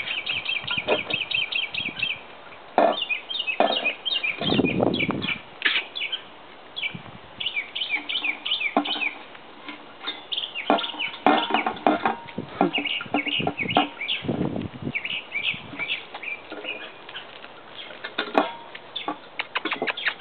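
A litter of six-week-old puppies eating kibble from a stainless steel puppy feeding pan on concrete: scattered knocks and clinks against the metal pan. Over them runs a busy stream of short, high chirps and clucks from birds.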